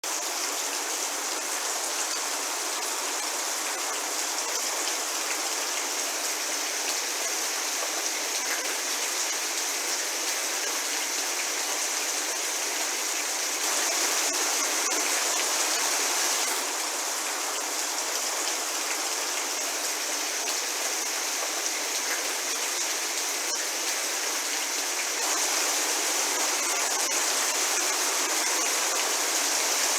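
Steady medium rainfall, a continuous even hiss of drops. It grows slightly heavier for a couple of seconds about halfway through and again near the end.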